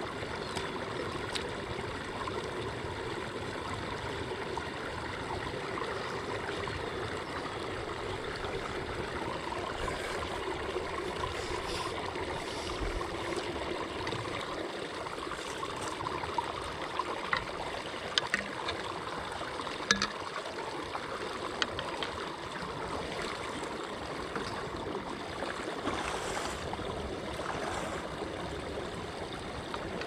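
Pond water draining into an overflow pipe through a caged drain guard, a steady rushing gurgle. A few sharp clicks and knocks come in the second half.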